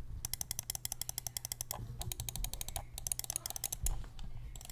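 Left and right buttons of an Xm1 RGB gaming mouse, fitted with Kailh Red switches, clicked rapidly in three runs of about a second each, with fainter clicks near the end.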